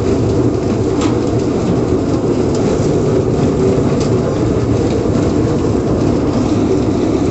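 Loud, steady rumbling noise, even in level, with no clear rhythm or pitch.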